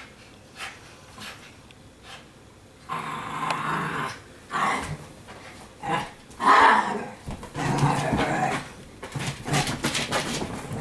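Italian Greyhounds play-growling as they wrestle: a few short sharp sounds at first, then from about three seconds in a string of rough growls, loudest around the middle.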